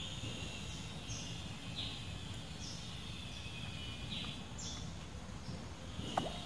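Forest riverside ambience: a steady high insect drone with short, high chirps repeating about once a second, over a low rumble. A single sharp click comes near the end.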